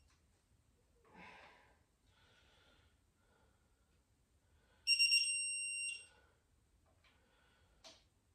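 An electronic torque wrench gives one steady high beep lasting about a second, about five seconds in, signalling that a cam plate/oil pump bolt has reached its first-pass torque. Fainter tool-handling noise comes about a second in, and a short click near the end.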